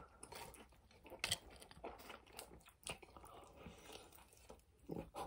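Faint chewing and mouth sounds of a person eating a forkful of soft apple purée, with a few small clicks.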